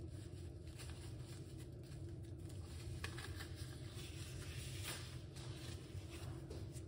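Faint steady low hum with scattered light clicks and rustles, a little louder about three and five seconds in.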